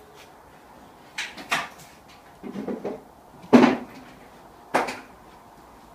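A few short knocks and clunks, four in all, the loudest about halfway through, with a brief scrape between the second and third.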